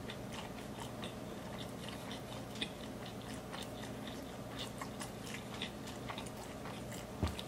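A person chewing a mouthful of bacon cheeseburger close to the microphone: quiet, wet mouth sounds with many small clicks.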